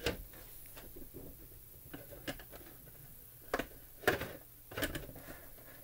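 Hands handling a Red Ranger helmet replica and setting it onto its display stand: a handful of light knocks and clicks at uneven intervals, the strongest a little past the middle.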